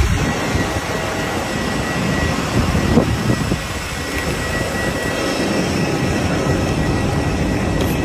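Steady roar and rumble of vehicle engines at an airport curb, with a brief knock about three seconds in.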